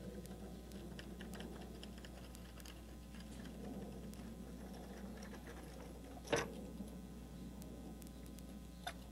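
Splining tool rolling rubber spline into a window-screen frame's groove, giving a faint, irregular run of small clicks and ticks. One sharper, louder click comes about six seconds in.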